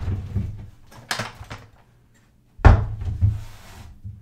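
Hard plastic Glock pistol case being handled on a table and opened: a sharp click about a second in, then a louder thump and plastic clatter a little before three seconds as the lid comes up.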